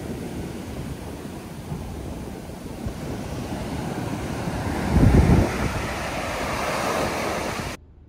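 Ocean surf breaking and washing up a sandy beach, a steady rushing hiss that swells toward the end. Wind buffets the microphone in a loud low rumble about five seconds in. The sound cuts off abruptly just before the end.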